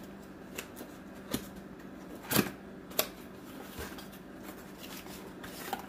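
Cardboard box and packaging being opened and handled: scattered light rustles and taps, with two sharper knocks about two and a half and three seconds in.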